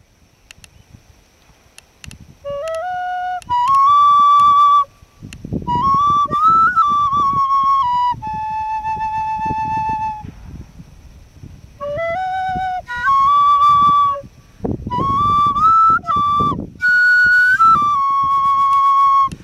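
A flute played solo: a slow melody of held notes with slides between pitches, in phrases separated by short pauses, starting a couple of seconds in. Low rumbling noise sits under several of the phrases.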